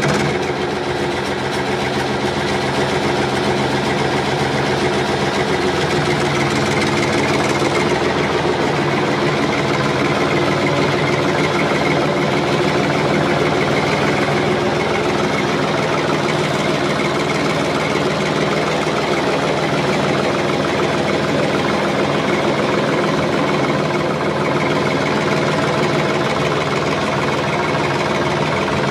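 Heavy farm machine's engine running steadily at a constant speed.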